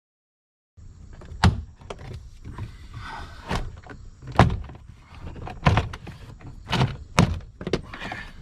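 Plastic door trim on a BMW E90 being pried off by hand, with scraping and a series of sharp snaps and knocks as the retaining clips let go, about seven at irregular intervals.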